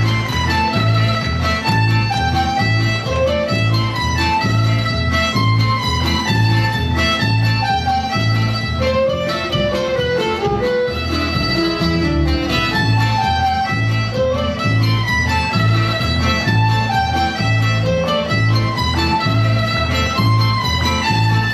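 Lively Mexican folk dance music, a tune over a steady pulsing bass beat.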